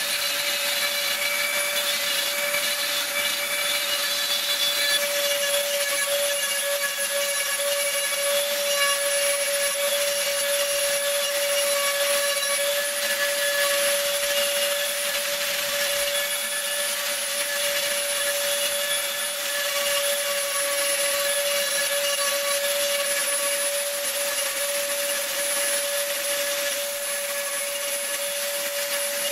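Dremel rotary tool on a flex shaft running at steady speed with a steady whine, its diamond burr grinding into wet stone.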